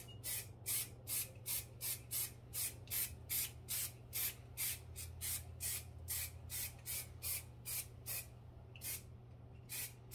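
Small aerosol can of water-based spray paint sprayed in many short spurts, about three a second, thinning out to a few spaced spurts near the end.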